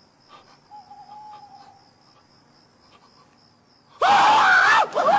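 Faint, evenly pulsing insect chirping, then about four seconds in a man suddenly lets out a loud yell of shock ("ah!") that wavers in pitch.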